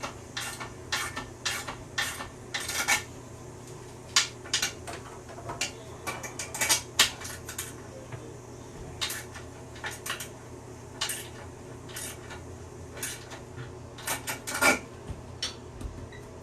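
A metal wrench clicking and clinking irregularly against the bolts of a toilet as they are given a few more turns to stop the toilet wiggling. A faint steady hum runs underneath.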